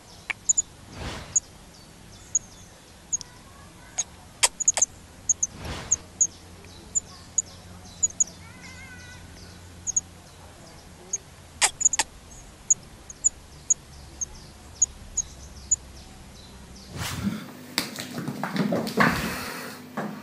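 Songbird nestlings begging with short, very high cheeps, about two a second. Near the end the cheeping gives way to a louder stretch of knocks and rustling.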